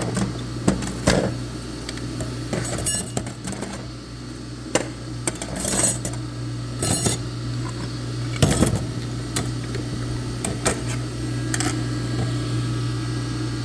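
Steel transmission clutch plates clinking as they are handled and sorted: irregular metallic clinks every second or so, over a steady low hum.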